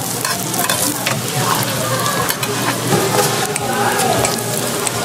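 Hotteok (Korean sweet pancakes) sizzling in oil on a flat griddle. Scattered clicks and scrapes come from metal utensils on the hot plate.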